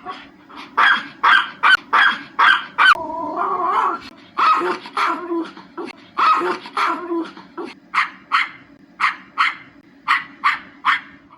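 Pomeranian (German Spitz) barking in quick runs of short, high-pitched yaps, with a brief drawn-out whine about three seconds in.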